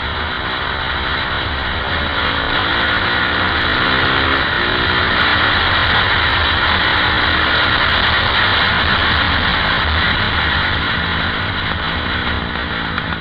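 KTM 520 EXC supermoto's single-cylinder four-stroke engine running hard on the road, its pitch climbing several times as it pulls through the gears, under heavy wind rush on the onboard microphone.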